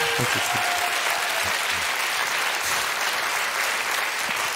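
Studio audience applauding steadily after a punchline.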